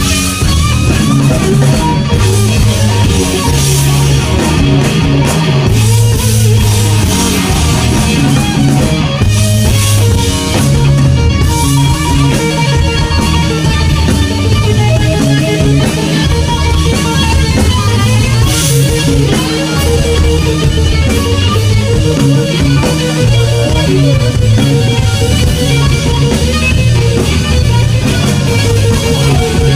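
Loud rock music led by an electric guitar, with bass and drum kit. The guitar plays long, bending notes.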